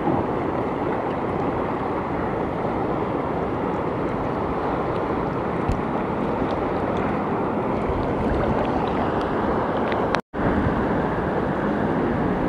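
Steady wash of wind and small waves on shallow sea water, with wind rumbling on the microphone. The sound cuts out for an instant about ten seconds in.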